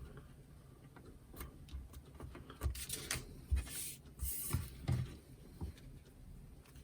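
Light handling of paper craft pieces on a work table: a handful of soft taps and short paper rustles, clustered from about two and a half to five seconds in.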